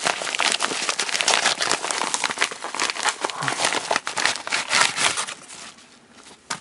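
Padded paper mailer and its packing crinkling and rustling as it is handled and emptied, with dense crackles that die down about five seconds in.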